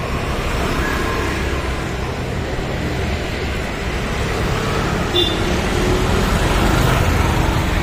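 Street traffic noise: motor vehicle engines running with a steady rumble. There is a brief high chirp about five seconds in, and the sound gets a little louder near the end as a vehicle passes close.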